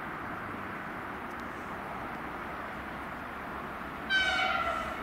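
Steady distant rumble of an approaching train, which sounds one horn blast about four seconds in, lasting about a second with its pitch sagging slightly.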